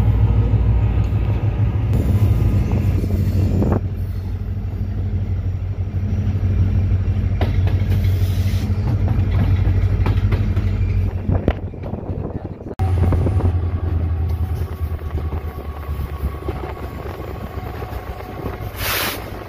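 EMD diesel-electric locomotive running under way, heard from the cab: a steady, deep engine drone with a few sharp knocks from the wheels on the rails. A short hiss comes near the end.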